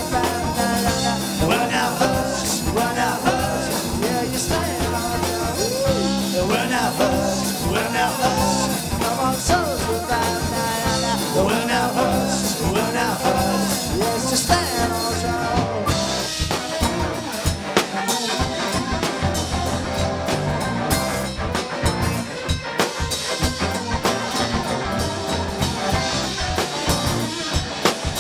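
Live rock band playing an instrumental jam: drum kit, bass guitar, electric guitars and keyboards.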